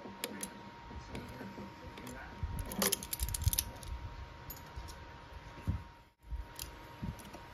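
Steel locking pliers clicking and clinking against a threaded stud, with a quick cluster of metallic clicks about three seconds in.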